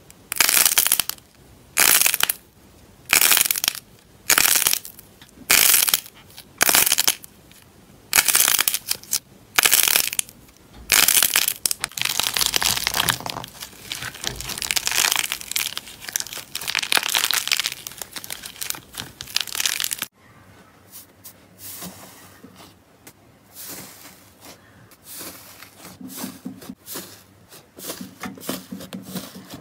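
Slime being squeezed and pressed, crackling and crunching: about eight separate squeezes a little over a second apart, then a long stretch of continuous crackling that breaks off sharply about two-thirds of the way through, followed by quieter, scattered crackles.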